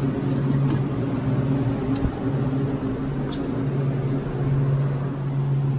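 Steady hum of a walk-in beer cooler's refrigeration fans, with a couple of light clicks as cans on the shelves are handled about two and three seconds in.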